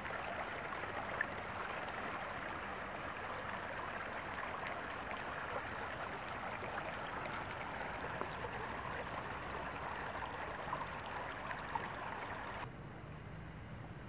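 Shallow stream flowing over rocks: a steady rush and babble of water with faint small splashes. It cuts off near the end, leaving a quieter low rumble.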